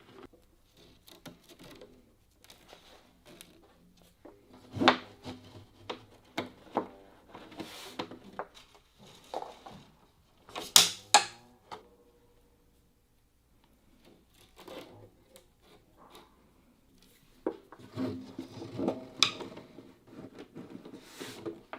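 Irregular wooden knocks and handling clatter, some leaving brief ringing pitched tones.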